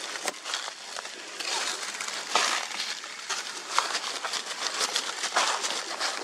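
Dry fallen leaves crunching and crackling under footsteps, in an irregular run of crisp rustles.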